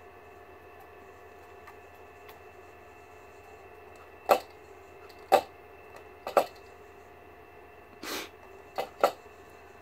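A few short, sharp knocks and clicks, irregular and a second or so apart, with a brief scrape among the last ones, as a golden Syrian hamster scrabbles up the rim of its clear plastic tub of paper-pellet bedding.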